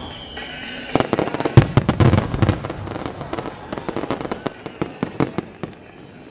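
Starmine fireworks barrage: a falling whistle fades at the start, then a dense volley of sharp shell bursts and crackling reports begins about a second in and thins out over the next few seconds.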